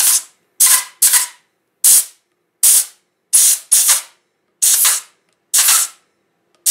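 Grease gun forcing grease into a Mercedes W126 front wheel hub and bearing, in about ten short hissing spurts a little under a second apart, each starting sharply.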